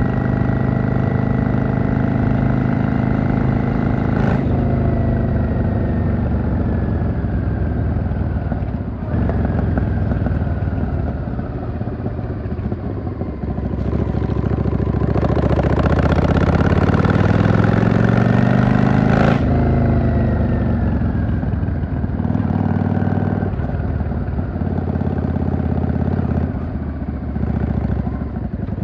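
Yamaha XVS650 V-Star bobber's V-twin engine while riding in traffic. Its pitch falls as the bike slows, then it revs up and gets louder through the middle, cut off by a sharp gear change, and falls away again.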